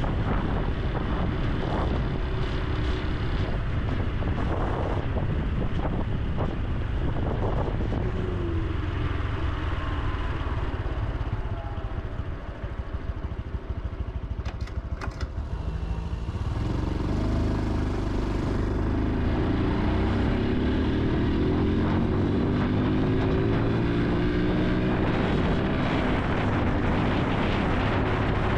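Honda Super Cub C125's single-cylinder 125 cc engine on the move: its note falls and quietens as the bike slows to near a stop about a third of the way in. About halfway through it picks up again, the pitch climbing in repeated rises as it accelerates through the gears.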